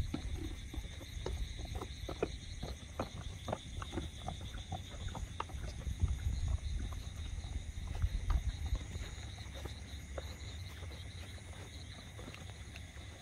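Night insects, crickets, trilling steadily in a high register, over a steady low rumble. Scattered light clicks, thickest in the first two-thirds, fade out after about nine seconds.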